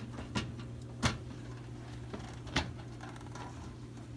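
A few sharp knocks and clicks as the microwave's metal trim panel is worked up and handled, over a steady low hum.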